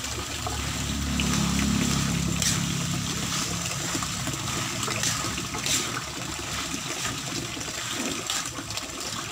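Hands mixing wet chopped herbs, spring onion and tomato with pounded spice paste in a bowl: a steady wet rustling and squishing, with a few sharper crackles.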